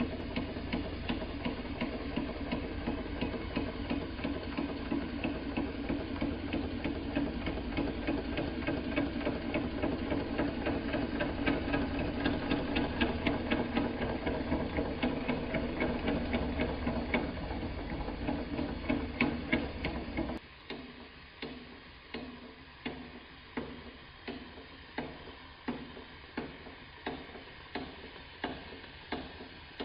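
Wilesco D20 model steam engine with a double-acting cylinder running, making a fast, regular mechanical clatter over a steady low noise. About two-thirds of the way through, the sound changes abruptly: the low noise drops away and a slower, even ticking of roughly one beat a second remains.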